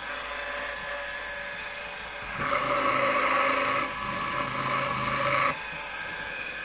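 Milling machine spindle running steadily with a drill bit in it. About two seconds in, the bit is fed down into the metal plate and cuts for roughly three seconds, louder and with a short dip partway, then lifts clear, spot-marking a hole rather than drilling through.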